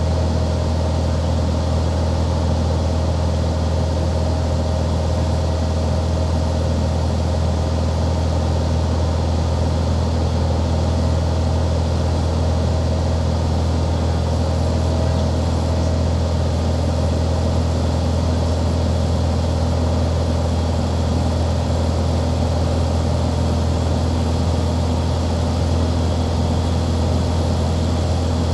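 Light airplane's piston engine and propeller droning steadily in flight, a constant low hum with steady higher tones over it and no change in power.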